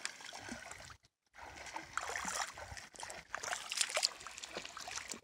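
Reservoir water splashing and lapping as a child swims, in irregular small splashes. The sound cuts out briefly about a second in.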